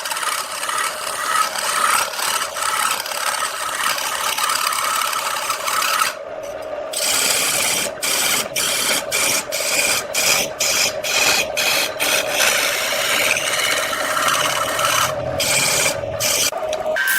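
Wood turning on a lathe, a tool or abrasive scraping against the spinning wood with a steady rasp over a faint hum. About six seconds in the scraping stops briefly, then comes in short strokes about two a second for several seconds before running on steadily.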